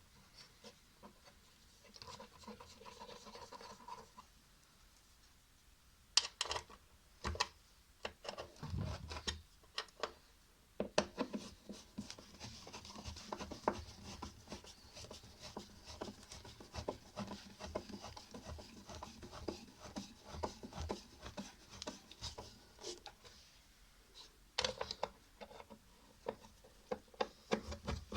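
Screws being turned in to fasten a washing machine's gearbox: scratching and rubbing of metal with irregular sharp clicks and knocks, coming thick and fast from about a third of the way in.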